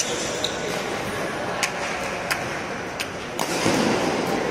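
Badminton rackets striking a shuttlecock: several sharp clicks at uneven spacing, the strongest near the end, over the steady noise of a sports hall.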